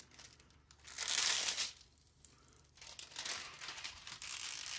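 Clear plastic cover sheet on a diamond painting canvas crinkling as it is lifted and handled. There is one louder rustle about a second in, then softer crinkling over the last couple of seconds.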